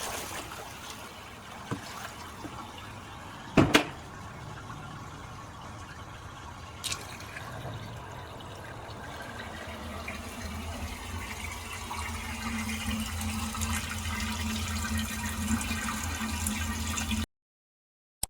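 Water pouring and running away down a kitchen drain as a bucket is emptied, with a sharp knock about three and a half seconds in and a fainter one near seven seconds. A low steady hum builds through the second half, and the sound cuts off suddenly near the end.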